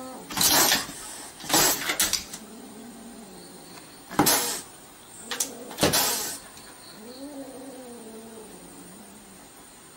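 A kitten meowing in drawn-out, wavering calls, twice in the second half, with several short, loud, noisy bursts before and between them.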